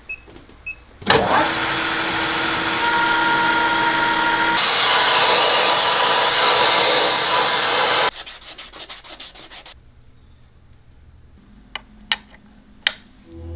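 Metal lathe turning a turntable platter disc: a loud, steady cutting noise with a faint whine, which cuts off suddenly about eight seconds in. A brief run of rapid ticking follows, then a few sharp clicks of machined aluminium feet being handled.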